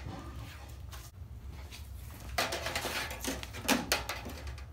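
Flexible aluminium dryer duct crinkling and rattling as it is handled, with sharper metallic clicks and rustles in the second half, over a steady low hum.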